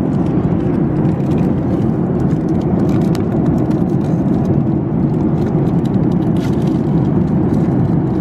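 Steady low rumble of a vehicle in motion, heard from inside, with faint scattered ticks and rattles.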